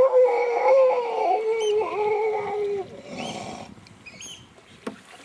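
Grey seal giving one long, wavering moan that slowly sinks in pitch and ends about three seconds in. A short splash of water follows.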